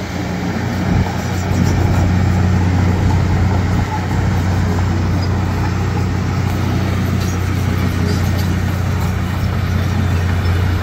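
Diesel engine of a heavy earthmoving machine running steadily at an even pitch, with a few faint clicks over the hum.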